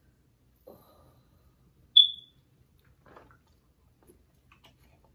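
A single short, high-pitched electronic beep about two seconds in, much louder than anything else. Around it are faint eating sounds as sauce is sucked from fingers.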